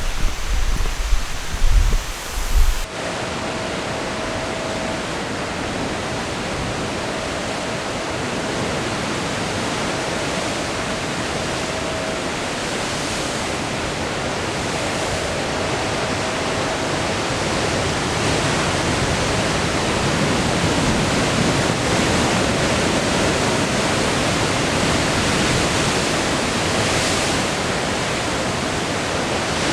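Steady, dense rush of falling water from a waterfall. For the first few seconds, wind buffets the microphone with a low, fluctuating rumble. A faint thin tone comes and goes over the water.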